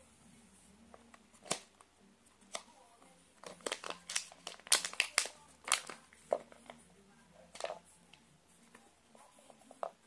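Thin clear plastic packaging bag crinkling and tearing as it is opened by hand, in a string of sharp crackles that are thickest from about three and a half to six seconds in.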